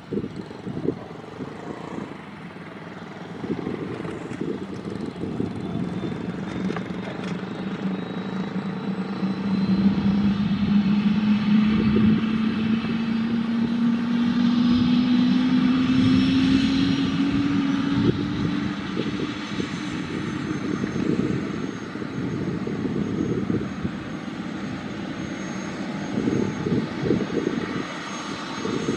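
Airbus H125M helicopter's single turboshaft engine and main rotor spinning up during start: a rising turbine whine over a fast rotor beat that climbs in pitch for about twelve seconds, then levels off and holds steady.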